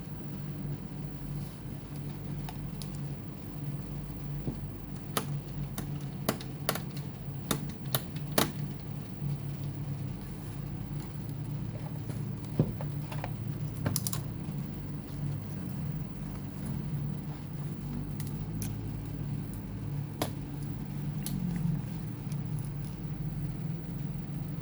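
Irregular small clicks and taps of plastic and metal laptop parts and screws being handled, over a steady low hum.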